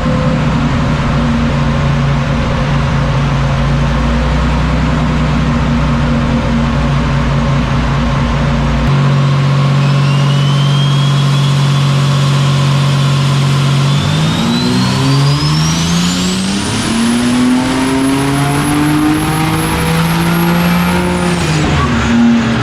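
Turbocharged Holden Ecotec V6 running steadily, then pulled hard under load: the engine note climbs for several seconds while the turbo's whistle rises to a high, steady pitch. Near the end the throttle shuts and the note and whistle fall away suddenly.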